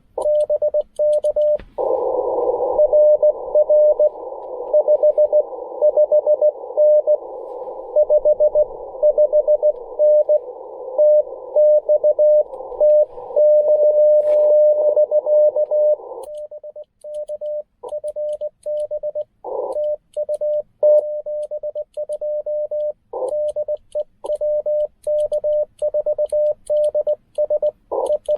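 Morse code (CW) beeps from a Ten Tec Argonaut V transceiver. Through the first half a station is heard keying its steady tone through a band of hiss. About sixteen seconds in the hiss drops away and clean keyed sidetone follows, with faint clicks of the paddle key as the operator sends.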